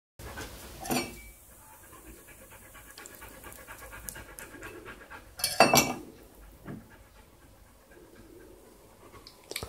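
Knife cutting raw pork on a wooden chopping board, with two louder knocks of the blade or meat against the board, one about a second in and one just past halfway.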